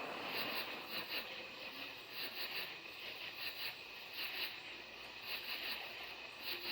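Night insects calling: short high-pitched pulsed chirps in groups of two to four, repeating about once a second.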